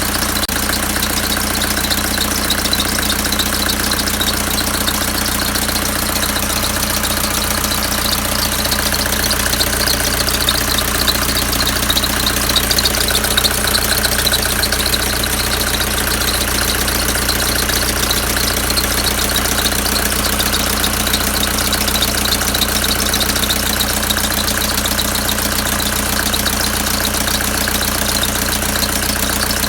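Mercedes-Benz OM601 four-cylinder diesel engine idling steadily, with a high-pitched squeak running along with it whose source is unknown.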